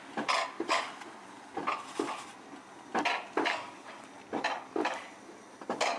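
Alpine coaster sled running down its metal rails, its wheels giving off sharp metallic clacks in pairs about every second and a half.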